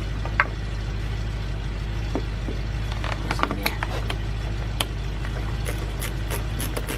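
Stubby 3/8-drive ratchet with a 10 mm deep socket clicking in short runs while loosening the bolts in a valve cover's access holes, with a faster run of clicks near the end. A steady low hum underneath.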